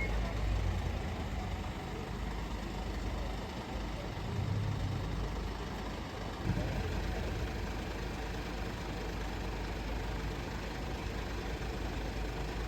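Vehicle engine idling steadily, with one short knock about six and a half seconds in.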